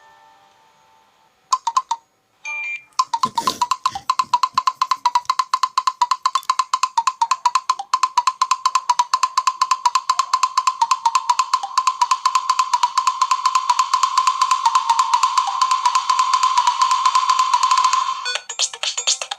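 Nokia Lumia 925 ringtones: a chiming tone fades out, then after two short blips a new ringtone starts about three seconds in. It is a fast, even run of clicky percussive hits over a steady high tone, and the pattern changes shortly before the end.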